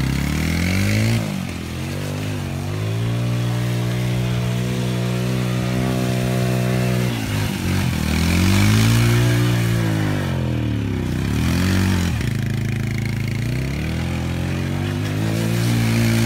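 Small youth ATV engine revving as it spins donuts in the mud. The pitch climbs and falls in long swells and drops away sharply three times as the throttle comes off.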